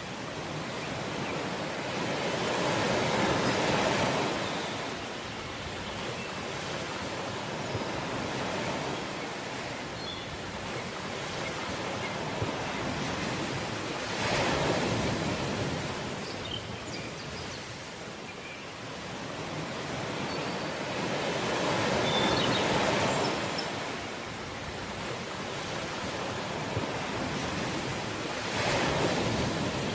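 Ocean waves breaking and washing up a beach, a steady hiss of surf that swells to a louder surge four times, roughly every seven to ten seconds, then ebbs back.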